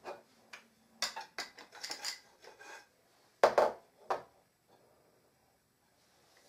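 Wooden play-gym parts, rods and strung wooden beads, clacking and knocking together as they are handled and fitted. A handful of sharp knocks, the loudest about three and a half seconds in, then it goes quiet.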